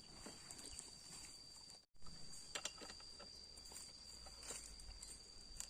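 Faint outdoor background of insects: one steady, high-pitched cricket-like tone with a hiss of insect noise above it, and a few light clicks. The sound cuts out completely for a moment about two seconds in.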